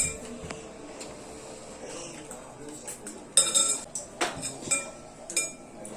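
Eating utensils clinking against a dish several times, each clink leaving a short ringing tone, most of them in the second half.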